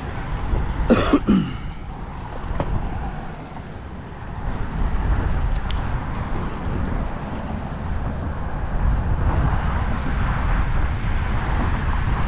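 Steady low rumble of road traffic, growing a little stronger partway through. About a second in there is a brief pitched sound that falls in pitch.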